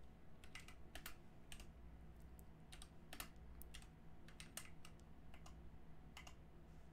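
Faint typing on a computer keyboard: single keystrokes at an irregular pace, some keys struck a little harder than others.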